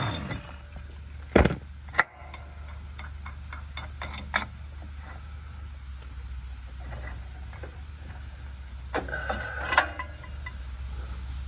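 A short burst from an air impact wrench about a second in, then scattered small metallic clicks and clinks as the loosened pulley nut and the belt pulley are taken off the riding mower's steel frame by hand. A steady low hum runs underneath.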